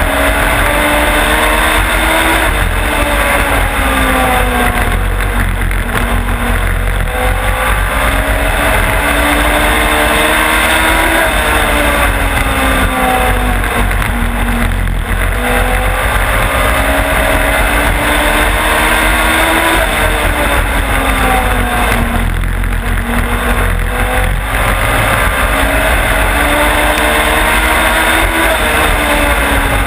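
Race car engine heard onboard at racing speed, its revs climbing along the straights and dropping back into each turn, over and over, with a steady rushing noise underneath.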